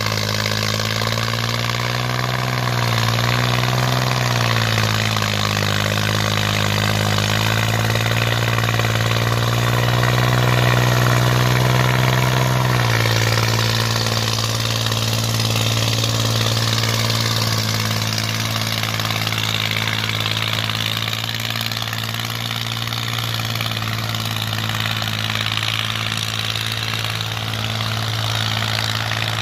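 Engine of a homemade tracked soil carrier running with a steady chug. Its pitch sags and wavers in the first few seconds, shifts at about 13 seconds while the load is tipped, and then holds steady.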